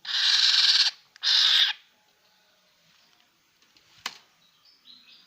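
Black-naped oriole giving two harsh, rasping screech calls, the first just under a second long and the second shorter, close together. A single sharp click follows about four seconds in.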